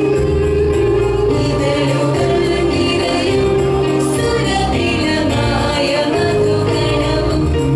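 Mixed choir of women's and men's voices singing through stage microphones, slow, with long held notes.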